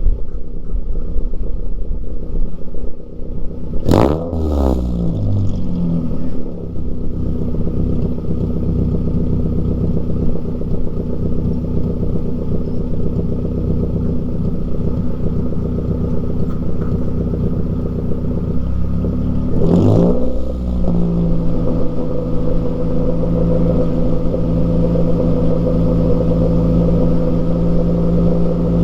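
2009 Mazda3's 2.3-litre four-cylinder engine, straight-piped from an aftermarket racing header and high-flow cat, idling loud and steady and revved sharply twice, about four seconds in and again about twenty seconds in, each rev falling quickly back to idle. The home-welded exhaust has a small leak that can be heard in the sound.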